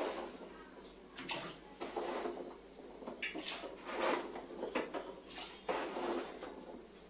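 Chunks of chopped raw tapioca (cassava) being pushed off a wooden board into a pot of water, dropping in with a series of irregular splashes and plops.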